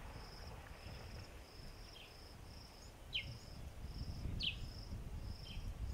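Outdoor wildlife ambience: an insect's short, high chirping pulses repeating about one and a half times a second, with a bird's short, steeply falling whistled notes four times, over a low steady noise.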